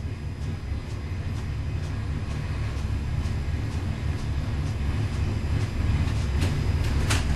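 Small-block Chevy 415 cubic-inch stroker V8 running on an engine dyno: a steady, deep rumble that grows slightly louder, with a short hiss near the end.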